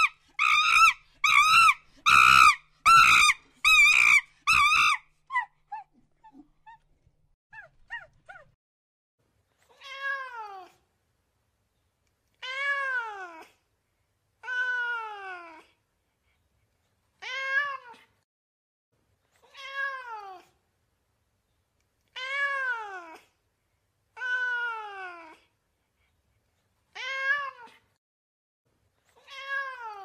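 A monkey gives a quick run of about six loud, pitched calls in the first five seconds. Then a domestic cat meows repeatedly: about ten drawn-out meows, each rising and then falling in pitch, roughly every two seconds.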